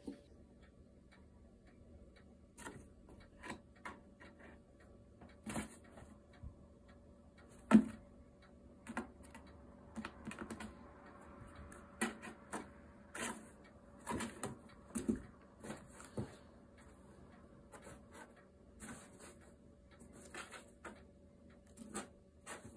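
Irregular taps, knocks and scratches of kittens' paws and claws on a small cardboard box, with one sharper knock about eight seconds in and a stretch of scratchy rustling a little later.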